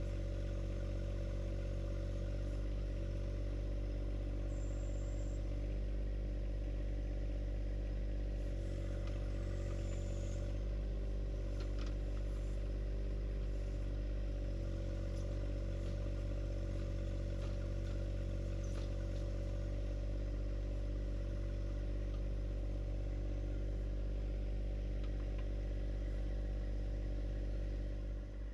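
John Deere 1025R compact tractor's three-cylinder diesel engine running at a steady speed, its pitch and level holding constant.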